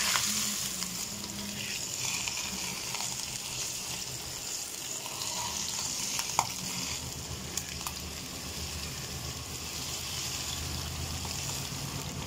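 Hot oil sizzling on a steamed whole chicken in a steel pot, poured over it to give the steamed bird a roasted finish. A steady hiss, loudest at the start as the last of the oil goes on, then easing a little, with a couple of sharp pops in the middle.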